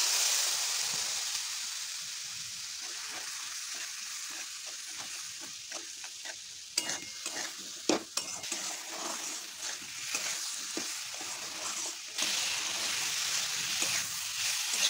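Potatoes, tomato and ground spices sizzling in hot oil in a kadai, the sizzle bursting up at the start as a little hot water goes in, then fading. A metal spatula scrapes and knocks against the pan as the mixture is stirred, and the sizzle grows louder again near the end.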